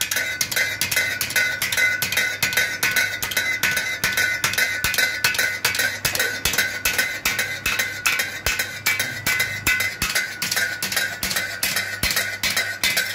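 Motor-driven mechanical hammer striking a flat steel strip in a rapid, even rhythm of about five blows a second, each blow ringing metallically, over the hum of its electric motor.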